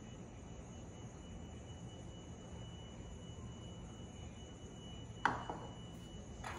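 Quiet kitchen room tone with a faint steady high whine. About five seconds in, a sharp knock as a bowl of yeast water is set back down on the countertop, followed by a lighter click near the end.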